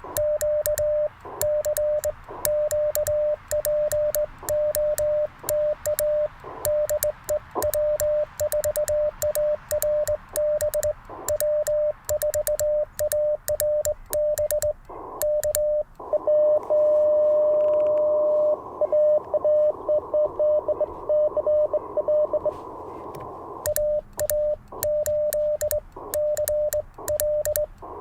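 Morse code keyed at a steady pitch of about 600 Hz: the Icom IC-705's sidetone as a cootie (sideswiper) key is worked, with sharp clicks from the key at each stroke. In the middle, for about eight seconds, the receiver's band-noise hiss opens up with Morse at the same pitch inside it, another station coming back, before the sidetone sending resumes.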